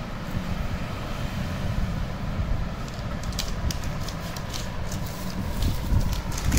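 Steady low background rumble, with a few short crinkles of a plastic sterile pouch being handled about halfway through.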